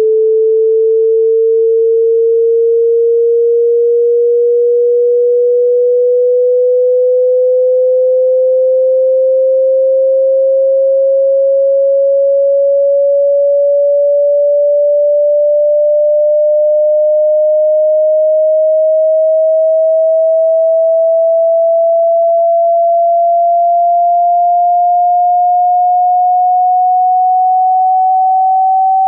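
Pure sine test tone gliding slowly and steadily upward in pitch, from about 430 Hz to about 780 Hz. It is a stretch of a 20 Hz to 20 kHz hearing-test frequency sweep.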